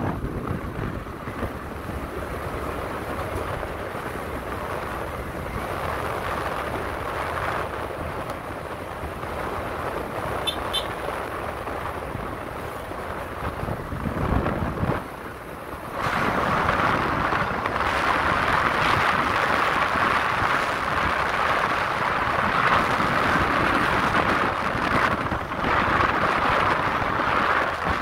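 Wind rushing over the microphone on a moving motorbike, with road and engine noise underneath. The rush turns louder a little past halfway. Just after ten seconds there is a brief high double chirp.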